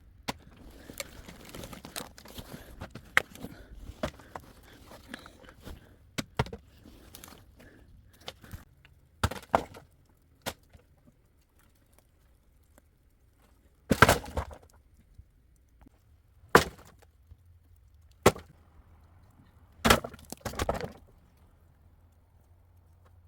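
Wood being broken: a handful of sharp, separate cracks spaced a second or more apart, the loudest about two-thirds of the way in, after a stretch of lighter crunching and rustling.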